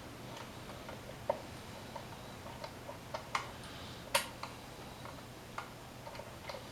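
Irregular sharp metallic clicks and taps of hand tools and socket wrench on engine parts, a few a second, with louder strikes about three and four seconds in.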